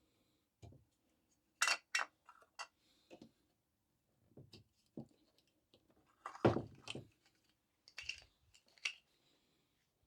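Scattered clicks and light metallic clinks of hand tools and screws while the switches are being unscrewed from an electric stove, loudest in two short clusters about two seconds in and near seven seconds.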